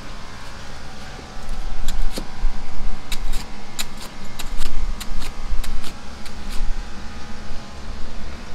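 Chinese cleaver chopping fried chicken on a thick round chopping block: an uneven run of about fifteen sharp chops, starting about two seconds in and stopping a couple of seconds before the end, over a steady background hum.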